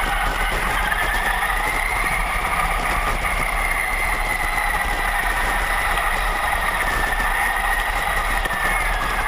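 Traxxas Summit 4x4 RC truck driving: a steady whine from its electric motor and gearing, rising and falling gently in pitch with speed, over a rough drivetrain noise.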